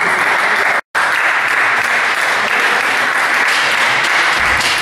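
Spectators applauding a won point in a table tennis match. The clapping is steady and dense, with a brief total dropout about a second in.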